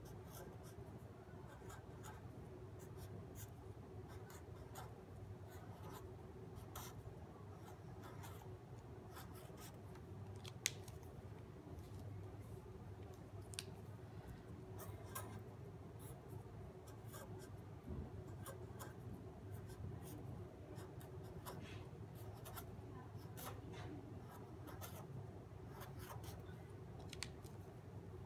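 Felt-tip marker on a paper worksheet: a run of faint, short scratching strokes as numerals are written, over a steady low hum, with one sharp click about ten seconds in.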